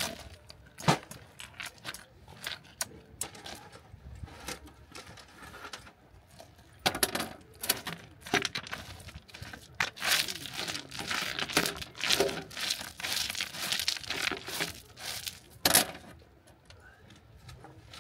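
A fabric carry bag rustling as camping gear is unpacked, with scattered sharp clacks of its metal parts. The rustling grows dense about seven seconds in. One loud clack comes near the end.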